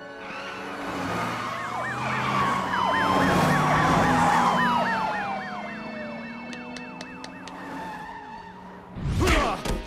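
Police car sirens, several at once: one yelping rapidly, about three to four sweeps a second, over slower wails that rise and fall. They grow louder toward the middle and then fade. A sudden loud burst of sound comes near the end.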